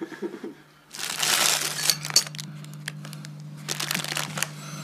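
Thin plastic bag crinkling and rustling as a bread roll is pulled out of it, in two spells, the first about a second in and the second near the end, with a low steady hum underneath.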